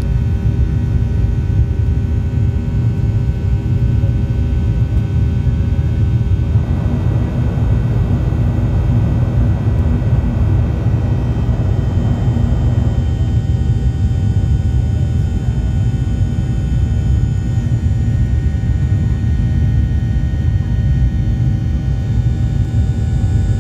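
Boeing 737-800 cabin noise: a steady low rumble of the engines and airframe with faint steady whining tones above it. A hiss swells for about six seconds in the middle.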